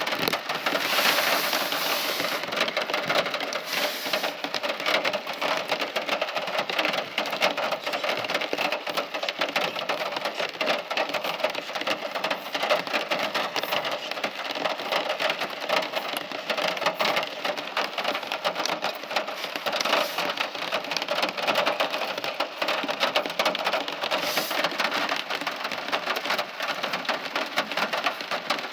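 Steady heavy rain: a dense patter of many close drops hitting a surface, with no thunder.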